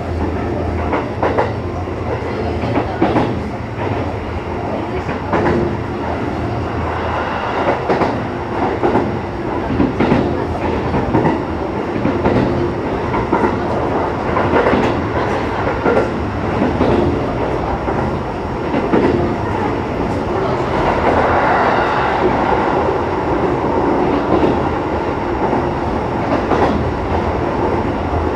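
Running noise inside a Sanyo Electric Railway 6000 series train under way, with the wheels clacking over rail joints at irregular intervals over a steady rumble. The rumble grows somewhat louder a little past the middle.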